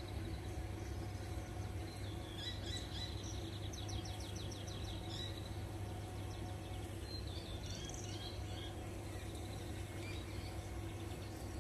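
Small birds chirping in short high calls, with a quick trill of rapidly repeated notes about two to four seconds in and more chirping later, over a steady low outdoor hum.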